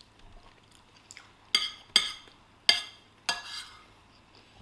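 Cutlery clinking against a plate while eating: about four sharp clinks with a short ring, spread over two seconds in the middle.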